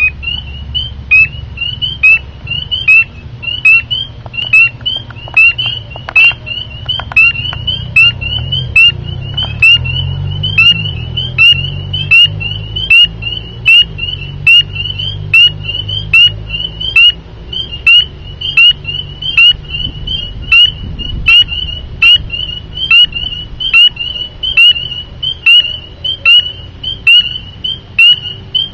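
Spring peeper frog calling: a loud, high, short peep, each slightly rising, repeated a little more than once a second, over a low steady rumble.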